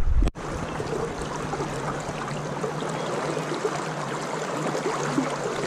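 Steady rush of a fast-flowing river. A low rumble of wind on the microphone cuts off abruptly just after the start.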